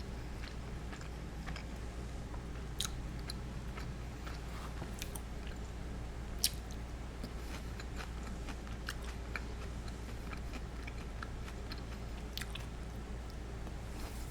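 A person chewing food close to the microphone: wet mouth clicks and small crunches, with a louder crunch about six and a half seconds in, over a steady low hum.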